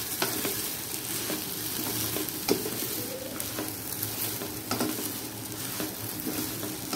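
Washed rice and lentils sizzling as they fry in oil and spice paste in a non-stick pan, stirred with a wooden spatula. A steady sizzle runs throughout, with scattered scrapes and taps of the spatula; the sharpest comes about two and a half seconds in.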